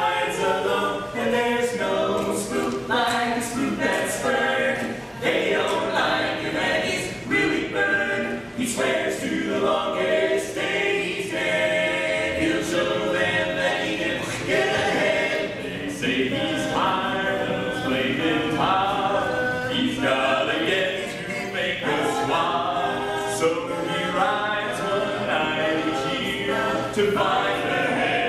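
A four-man barbershop quartet singing a cappella in close harmony, with no instruments.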